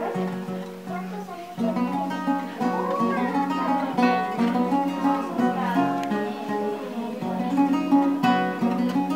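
Background music of acoustic guitar, plucked and strummed with a steady flow of notes.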